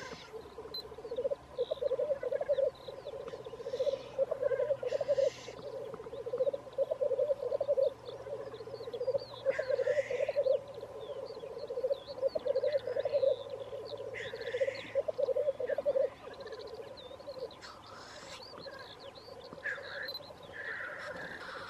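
Male black grouse lekking: a continuous rapid bubbling, cooing song that weakens near the end, broken about five times by short hoarse hissing calls.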